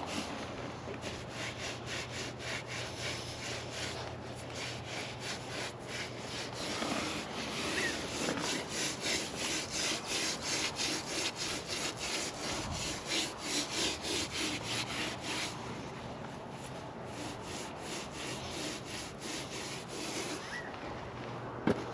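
A sponge scrubbing back and forth over fresh mortar, a rhythmic rasping rub of a few strokes a second. The sponge is smoothing and texturing the mortar to finish it. The strokes grow louder for a stretch in the middle.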